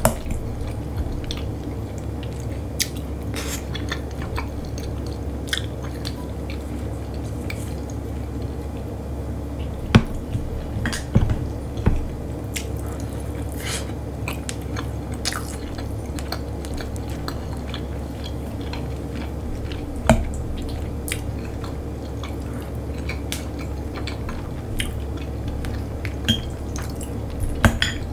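Close-up eating sounds of someone chewing and biting into juicy grilled meat, lyulya kebab, with small wet clicks and smacks throughout. A few sharper clicks of cutlery or dishes come at scattered moments, over a steady low hum.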